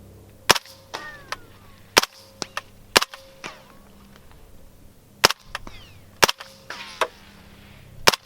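Six single shots from a suppressed 9mm H&K MP5 firing heavy 158-grain subsonic rounds through an AAC Ti-Rant 9 suppressor, spaced about one to two seconds apart. Fainter ticks follow between the shots.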